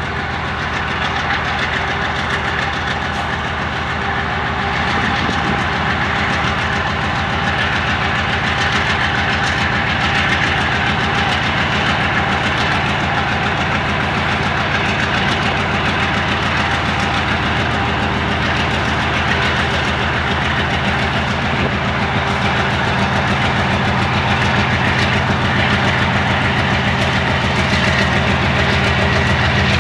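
GE C36-7i diesel-electric locomotive's 16-cylinder diesel engine working under load as it pulls a freight train away, a steady low pulsing throb that grows gradually louder as the locomotive draws nearer.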